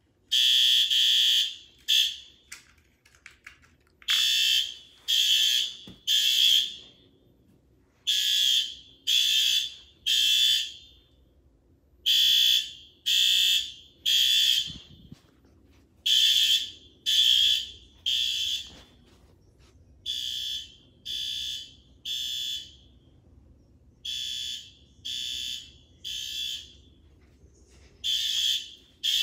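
Wall-mounted fire alarm horn strobe sounding a loud, high-pitched evacuation signal in the temporal-three pattern: three short blasts, a pause, repeated about every four seconds. It starts just after the beginning.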